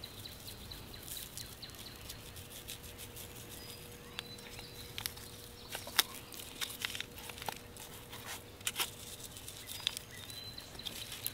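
Small shaker of fish seasoning being shaken over a plate of raw catfish pieces: scattered light clicks and taps, over a faint outdoor background with a faint steady tone.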